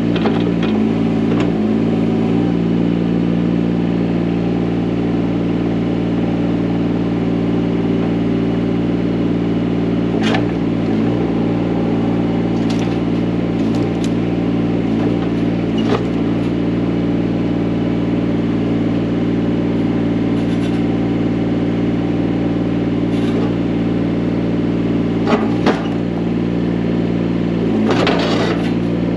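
Large diesel excavator engine running at a steady speed, with a few short clanks of machinery.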